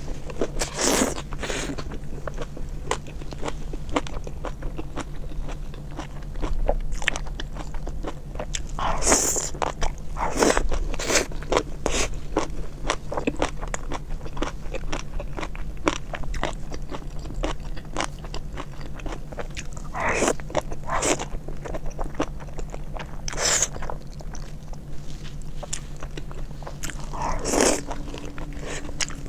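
Close-miked chewing of soft, saucy meat: many quick wet mouth clicks and smacks, with a few longer, louder wet noises now and then. A faint steady hum runs underneath.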